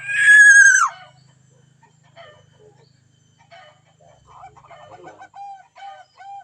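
A rooster crowing once, loudly, the call held and then dropping sharply at its end. Softer short calls follow, a few to the second, near the end.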